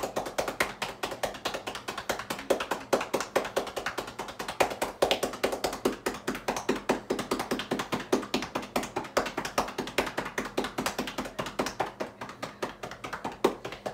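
Cupped hands clapping rapidly in a steady rhythm on a person's upper back through a T-shirt: chest percussion over the top of the lungs to loosen phlegm for airway clearance.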